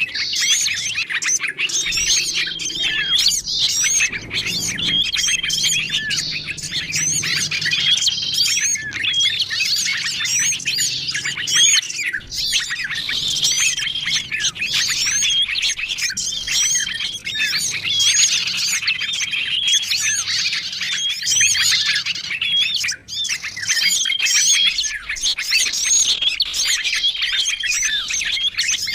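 Bird-lure recording of many small songbirds chirping and calling at once, a dense, agitated chorus of overlapping short high chirps and whistles, with a short whistled note repeated every second or two.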